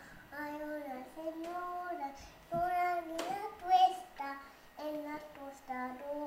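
A small child singing a Spanish-language children's song unaccompanied, in a high young voice with a string of short held notes.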